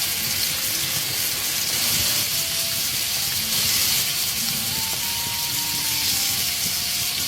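Starch-coated fish pieces deep-frying in a wok of hot oil: a steady, even sizzle.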